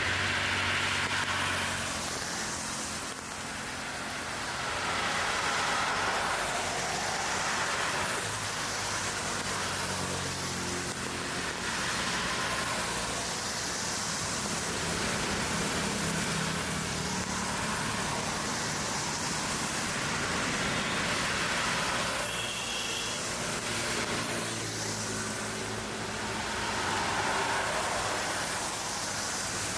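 Road traffic: cars and other vehicles passing one after another, engine hum and tyre noise swelling and fading every few seconds over a steady background roar.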